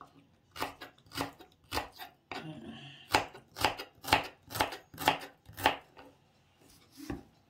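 Kitchen knife chopping shallots on a wooden cutting board: about ten sharp knocks, roughly two a second, then a pause and one more knock near the end.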